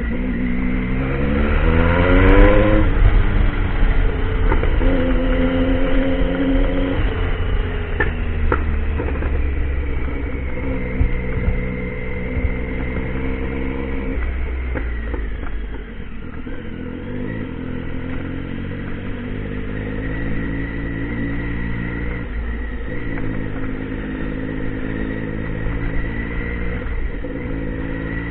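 Triumph Tiger motorcycle engine under way, its revs climbing and dropping repeatedly with throttle and gear changes. It eases off about halfway, then runs at a fairly steady pitch.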